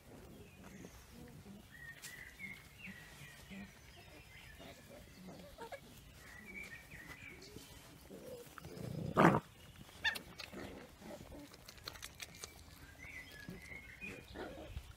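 Cavalier King Charles Spaniel puppies making small squeaks and whimpers, with one loud short sound about nine seconds in.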